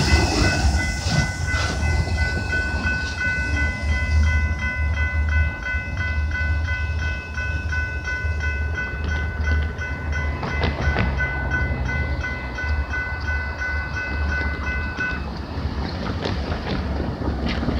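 Railway level-crossing warning bell ringing steadily, then stopping about fifteen seconds in as the crossing clears, over the low rumble of a departing freight train.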